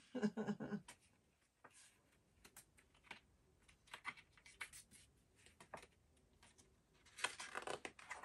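Soft paper rustles and light clicks as the pages of a picture book are handled and turned, with a longer, denser rustle near the end.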